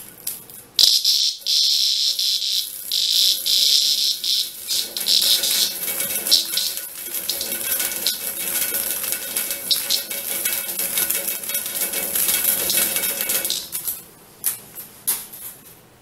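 Dog-day cicada (Tibicen canicularis) buzzing loudly and harshly while it spins and flutters on a metal mesh screen, the distress buzz it gives when disturbed. The buzz starts about a second in and comes in stops and starts at first, then runs steadily, and ends near the end in a few short bursts.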